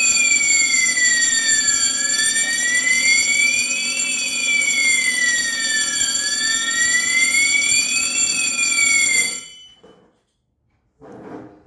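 Asenware conventional fire alarm system's sounder going off, a siren tone sliding slowly up and down about every two seconds over steady high tones, set off by a smoke detector in alarm after a smoke tester spray. It cuts off suddenly a couple of seconds before the end.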